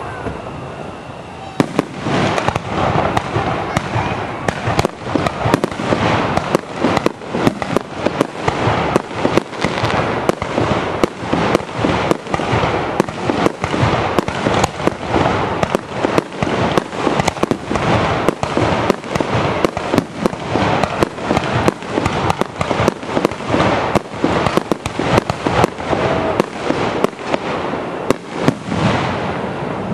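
Aerial fireworks shells bursting close overhead in a dense barrage: a sudden bang about a second and a half in opens a rapid run of bangs, several a second, that eases off near the end.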